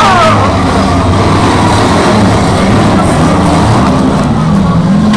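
Demolition derby car engines running and revving across the arena, loud, their pitch rising and falling unevenly.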